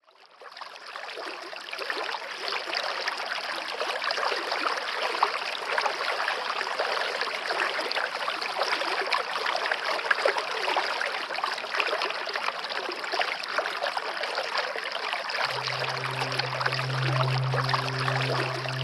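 Steady rushing, splashing water that fades in over the first second or two. About fifteen seconds in, a low held musical drone comes in beneath it.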